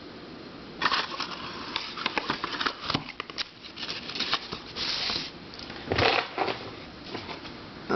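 Hard plastic twisty puzzles being handled and turned by hand: irregular clicking and knocking for several seconds, with a short scraping rustle about five seconds in.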